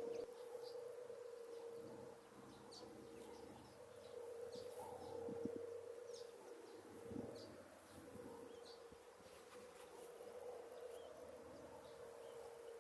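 Faint, scattered short high bird chirps over a steady low hum.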